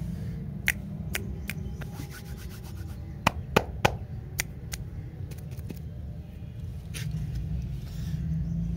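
Hands handling wrapped lollipops: scattered sharp clicks and crinkles of the paper wrappers and sticks, the loudest three coming close together a little past three seconds in, over a steady low rumble.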